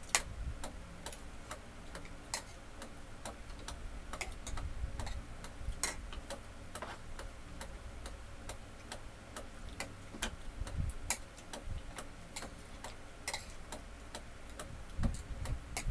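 Spoon and fork clinking and scraping against plates while eating: light, irregular clicks, often several a second.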